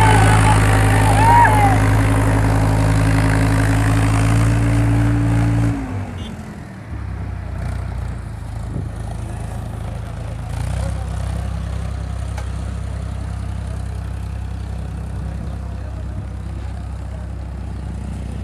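Eicher tractor's diesel engine running hard, hauling a trailer heavily loaded with sugarcane. About six seconds in, its loud, steady note drops away sharply, and a quieter, lower engine note carries on.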